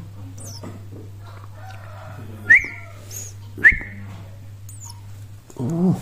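Nestling Eurasian tree sparrows begging with faint, high cheeps. Two loud, short whistle notes that rise sharply and then hold come about a second apart near the middle, over a steady low hum.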